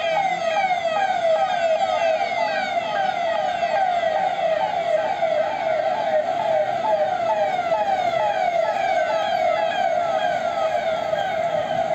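Electronic siren on a police escort vehicle, sounding in a fast, steadily repeating falling sweep.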